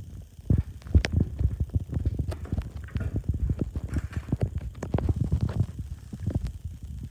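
Handling noise from the camera being picked up and moved: a dense run of low bumps, knocks and rubbing for about seven seconds.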